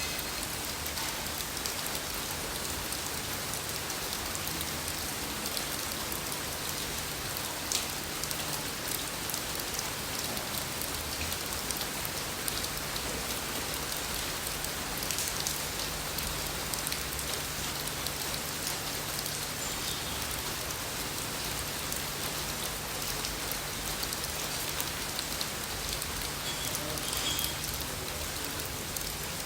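Steady rain falling, with individual drops ticking sharply throughout, over a faint low hum.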